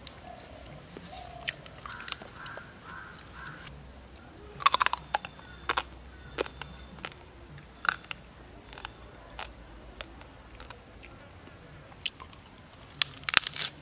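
Raw duck meat being pulled apart by hand and chewed close to the microphone: a scatter of sharp wet clicks and smacks, loudest about five seconds in and again near the end, over a faint steady high insect buzz.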